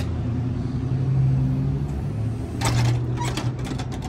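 Steady low hum of street traffic, with a quick run of light clicks from about two and a half to four seconds in.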